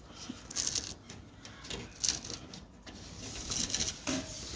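Car body panel and trim being worked loose by hand: a run of irregular clicks, scrapes and rattles of plastic and metal parts.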